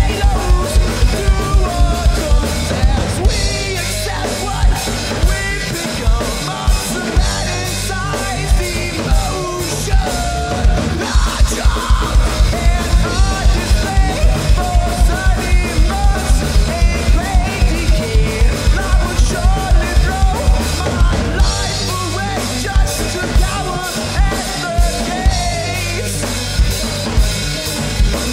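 A rock band playing live, with a drum kit beating a fast, steady kick-and-snare rhythm under electric guitar.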